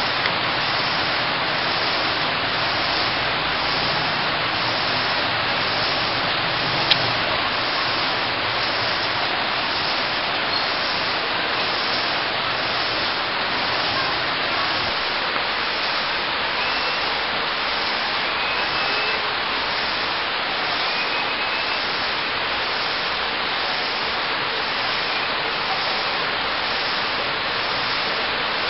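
Rain falling steadily on the house and garden foliage, a dense even hiss, with one sharp click about seven seconds in.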